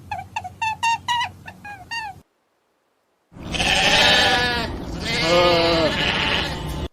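A quick run of short pitched calls, about four a second, stops about two seconds in. After a silence, two long, wavering bleats from a sheep or goat follow, the second longer than the first.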